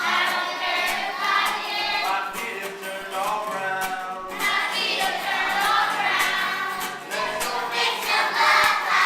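A group of voices singing a call-and-response chorus over music.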